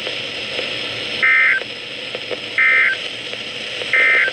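Three short, screechy bursts of Emergency Alert System SAME data tones, about a second and a half apart, sent over NOAA Weather Radio as the end-of-message code that closes the warning. A steady radio static hiss runs under them.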